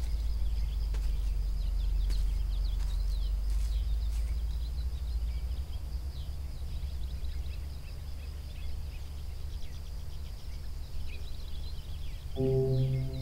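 Outdoor ambience: a low steady rumble with many small birds chirping. About a second before the end, ambient music with slow, held tones comes in.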